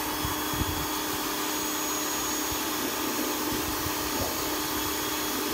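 Small electric pressure washer running steadily, its motor humming under the hiss of the water jet spraying onto wooden bench slats.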